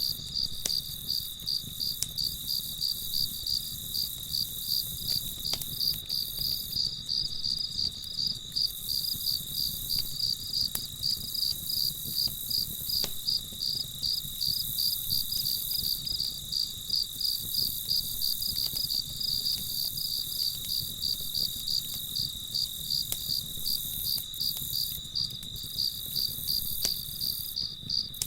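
A chorus of crickets chirping in a steady, rhythmic pulse over a continuous high insect trill, with a few faint pops and a low rumble of a campfire beneath.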